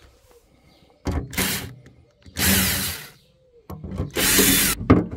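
Cordless driver backing out the screws that hold a gas BBQ outlet to a van's steel side panel, in three bursts of about a second each.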